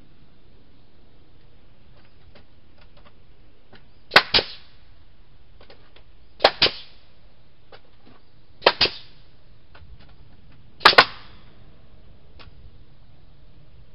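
Pneumatic framing nailer driving 3½-inch nails into pallet boards: four shots about two seconds apart, each a sharp double crack, with fainter clicks between them.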